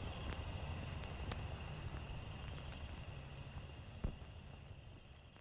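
Added background soundtrack with a steady high tone, short high chirps about once a second and a low rumble, fading out toward the end; a single sharp click a little after four seconds in.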